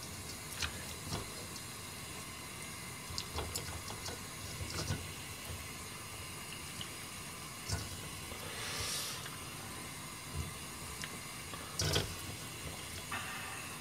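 Chunks of daikon radish being picked out of a metal colander and set into a pan of oden broth: scattered light knocks and small wet sounds over a steady faint hiss, with a short rush of hissing about nine seconds in.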